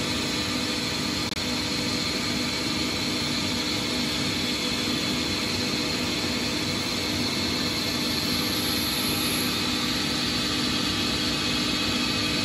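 Boxford BUD lathe running steadily with a constant motor and gear hum and whine as a drill in the tailstock chuck bores a hole through the centre of a spinning brass workpiece. The sound briefly cuts out a little over a second in.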